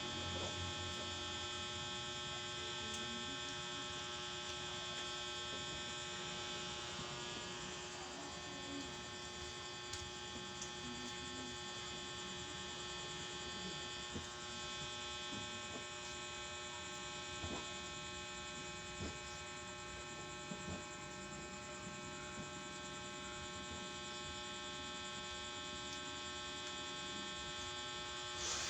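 Steady electrical hum, a constant buzz made of many fixed tones, with a few faint, brief ticks now and then.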